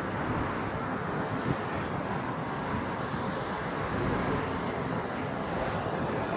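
Steady street traffic noise, a wash of passing road vehicles, with two brief sharp sounds a little over four seconds in.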